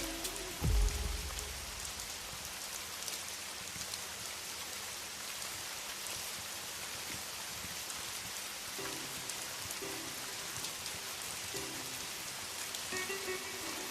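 Steady hiss of rain with scattered faint crackles, from a rain-and-fireplace ambience track. One low boom, the last beat of the previous song, comes just under a second in. Faint musical tones begin entering from about nine seconds in.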